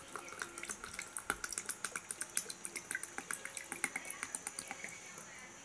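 Cold water poured in a thin stream into a glass tumbler holding mango pulp, splashing and trickling in quick small splashes; the pour stops about five seconds in.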